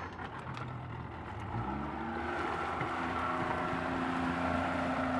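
Yamaha outboard motor on a small open fibreglass launch throttling up and pulling away. Its pitch rises about two seconds in, then holds steady.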